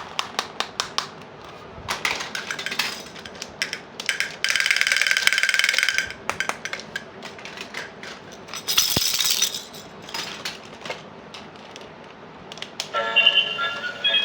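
Small plastic toy-kitchen pieces clicking and clinking as they are handled and set down, with two longer scraping or rustling stretches along the way. A short melody starts near the end.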